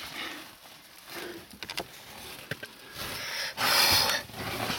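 Caver squeezing into a tight lava-tube passage: clothing, helmet and gloves rustling and scraping against rough rock, with a few light clicks near the middle and a loud rough scrape about three and a half seconds in.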